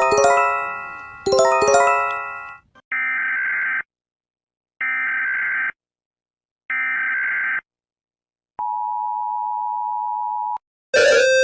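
Emergency Alert System-style alert: two descending chime strikes, then three buzzy data bursts about a second long each (the SAME header), then the two-tone attention signal held for about two seconds. A louder beeping alarm pattern cuts in near the end.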